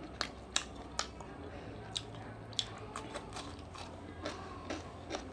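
A person eating seafood fried rice close to the microphone: chewing, with irregular sharp clicks and crunches.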